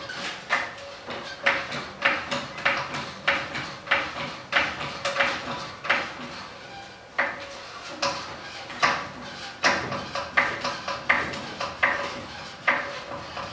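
Hydraulic floor jack being pumped to lift the front of a lowered pickup: a long run of sharp metallic clacks, roughly one to two a second.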